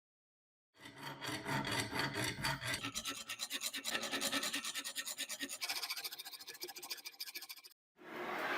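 Quick, rhythmic back-and-forth rasping strokes of hand brushing, sanding or filing on a rusty metal machine part, starting about a second in, with rust and grime being scrubbed off. A short hissing burst follows near the end.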